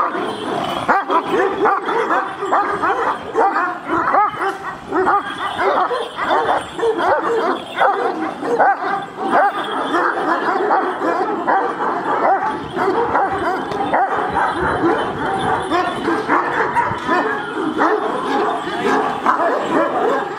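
Two Kangal shepherd dogs barking aggressively at each other while straining on their leashes: a rapid, continuous stream of deep, overlapping barks.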